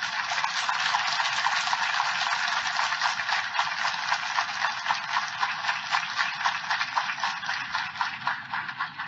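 An audience applauding, a dense patter of many hands clapping that thins out near the end.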